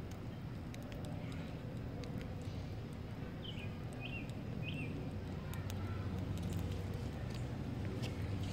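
Steady low rumble of wind on the microphone, with a bird giving three short chirps about halfway through and scattered faint ticks.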